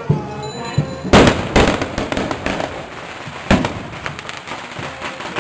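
Firecrackers going off: a loud bang about a second in, then a run of crackling pops and a few sharper cracks, with band music playing underneath.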